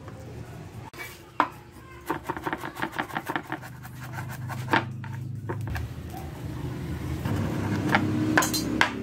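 Kitchen knife chopping garlic cloves on a wooden cutting board: a few single knocks, then a quick run of chops at about six a second, with more chops near the end. A low steady hum rises in the second half.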